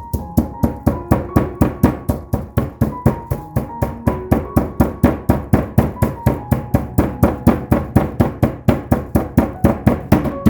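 Background music with a fast, steady beat of about four sharp strikes a second under a simple melody.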